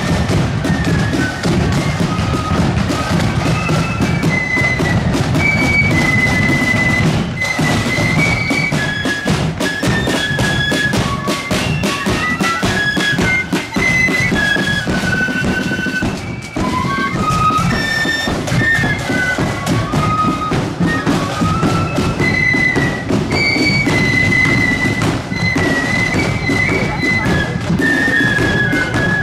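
Marching flute band playing a tune: flutes carry a high melody over constant snare drumming and a bass drum.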